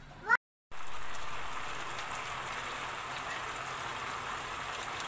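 After a short rising cry and a brief gap, chicken adobo's thick soy-based sauce sizzles and bubbles in a frying pan: a steady crackling hiss as the sauce reduces down and is nearly done.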